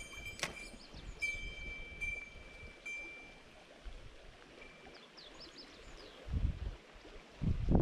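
Flowing river current, with a thin high whine in several short spells during the first three seconds and a few faint chirps around five seconds in. Low gusts of wind buffet the microphone near the end.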